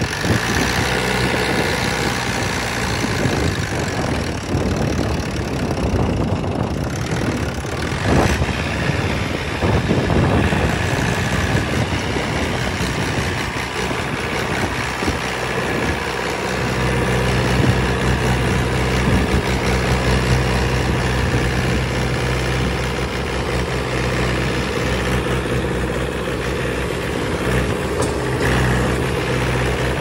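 Mahindra 475 DI tractor's four-cylinder diesel engine running as the tractor is driven slowly, settling into a steadier, fuller note about halfway through. One sharp knock sounds a little over a quarter of the way in.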